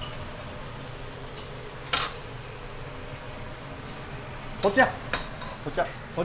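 Mushrooms and carrot slices braising in a dark sauce, sizzling and bubbling steadily in a pan. A metal ladle clinks sharply once against the pan about two seconds in.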